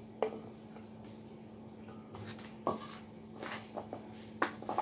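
Scattered light clicks and knocks as peeled garlic cloves are dropped into a glass blender jar and handled on a wooden table, over a steady low hum.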